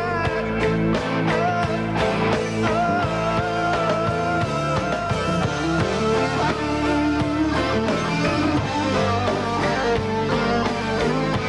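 Rock band playing live: electric guitars, bass and drums, with a man singing.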